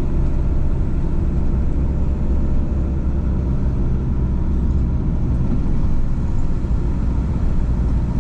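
Citroen camper van driving uphill, heard from inside the cab: a steady low engine hum with road and tyre rumble.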